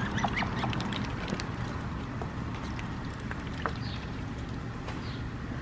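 A white Muscovy duck dabbling its bill in a tub of water: small irregular splashes and wet clicks over a steady low rumble.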